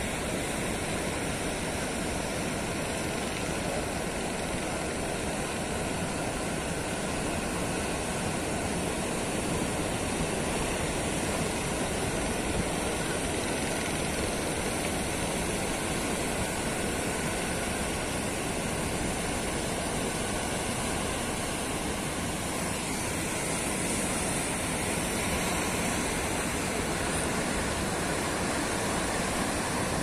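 Heavy ocean surf breaking continuously, a steady rush of noise with no let-up.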